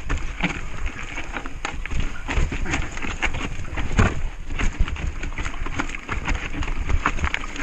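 Mountain bike clattering down a rocky trail: a rapid, irregular run of knocks and rattles as the tyres and frame hit rocks and roots.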